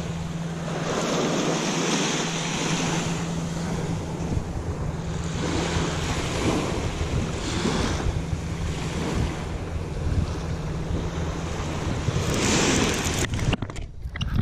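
Wind rushing over the microphone in gusts, with small waves washing along the saltwater shoreline. A steady low hum runs underneath until it cuts out near the end.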